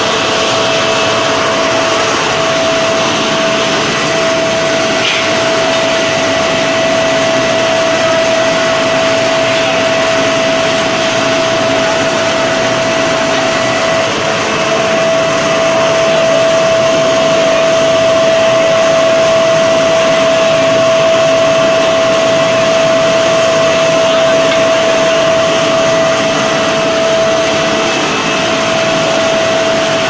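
Cupola furnace's air-blast blower running on blast: a loud, steady whine over a rushing hiss of air.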